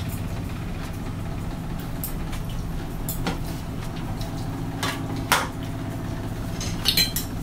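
Spoon and fork clinking and scraping on dinner plates a handful of times, the loudest clink a little past halfway and a quick cluster near the end, over a steady low machine hum.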